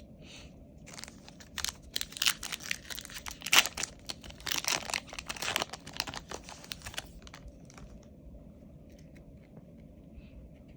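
Foil Yu-Gi-Oh booster pack wrapper being torn open and crinkled, a dense run of sharp crackles that stops about seven seconds in.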